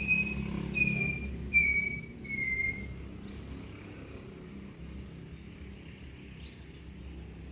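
Four short, high-pitched animal calls, each falling slightly at its end, in quick succession in the first three seconds, over a steady low rumble.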